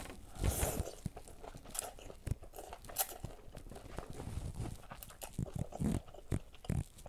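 Slurping noodle soup and chewing, with short wet smacks and small clicks and a few brief slurps.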